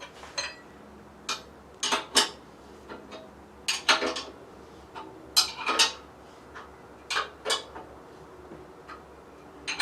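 Metal tool clinking against bolts and iron lathe parts as a bolt is worked tight: about ten sharp, irregular clinks, several in quick pairs, each with a brief ring.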